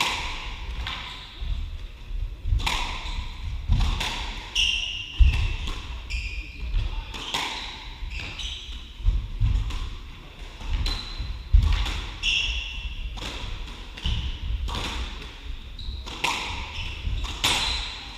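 Squash rally: the ball cracks off rackets and walls about once a second, with thudding footsteps and short high squeaks of court shoes on the wooden floor.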